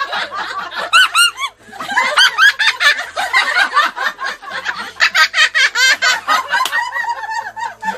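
Parrot imitating human laughter: a long run of quick, repeated 'ha-ha' cackles, with a brief pause about one and a half seconds in.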